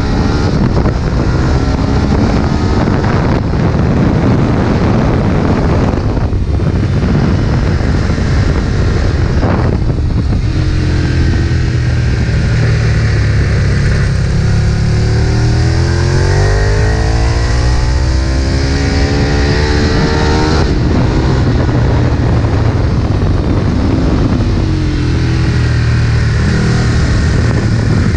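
Ducati 1098's L-twin engine run hard at track pace, revving up through the gears with the pitch climbing between shifts. There are short drops in the engine note about six and ten seconds in.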